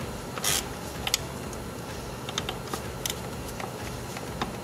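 A socket wrench at work on throttle body bolts: scattered, irregular metal clicks and clinks, with a brief scraping burst about half a second in.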